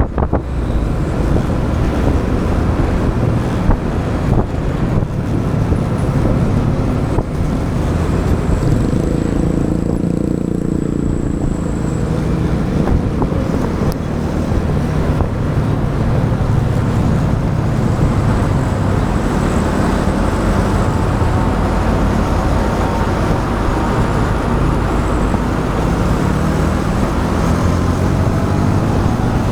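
A motorbike being ridden through road traffic: its engine runs steadily over traffic noise. The engine note rises and falls a few times as the speed changes.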